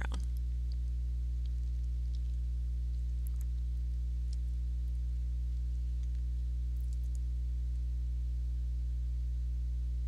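Steady low electrical hum with several evenly spaced overtones, and a few faint light clicks now and then.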